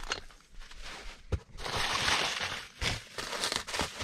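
Bubble wrap crinkling and rustling as it is handled and pulled, loudest for about a second in the middle, with a few light knocks.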